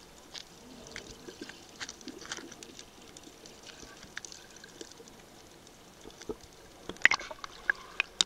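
Water heard from an underwater camera: a faint hiss with scattered, irregular small clicks and crackles. About seven seconds in come loud splashing bursts as the camera comes up through the water surface.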